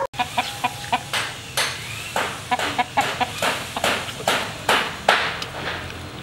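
Chickens clucking in quick runs of short notes, mixed with a series of sharp wet smacks and clicks of a person eating and chewing fish.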